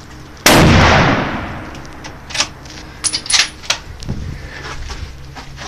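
A single loud rifle shot about half a second in, its echo fading over a second or so, followed by a few short sharp clicks and knocks.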